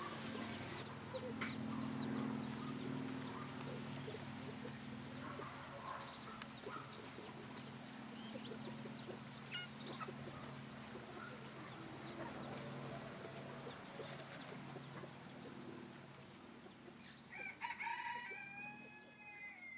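Young chickens calling while foraging: scattered short clucks and peeps, then a longer rising-and-falling chicken call repeated a few times near the end.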